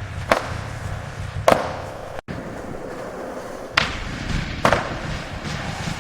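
Four sharp clacks or knocks, two in the first half and two in the second, over a steady background rumble and hiss, with a brief dropout between them.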